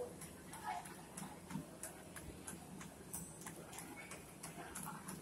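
Running shoes striking a motorised treadmill belt in a quick, even rhythm of nearly three footfalls a second, a runner at sprinting pace.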